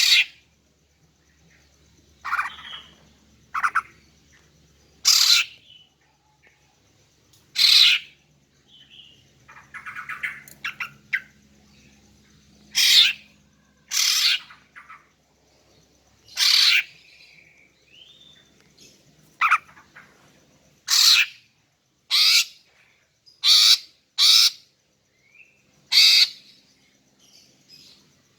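Female greater green leafbird (cucak ijo) calling: short, sharp calls repeated at irregular gaps, about fifteen in all. This is the kind of female call used to lure male cucak ijo and set them singing.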